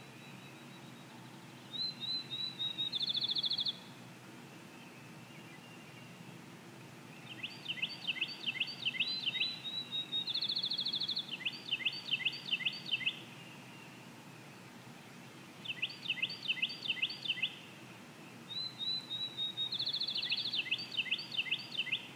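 Songbirds singing in four spells: strings of quick, high, sharp notes, some phrases ending in a fast buzzy trill. A steady low background noise runs underneath.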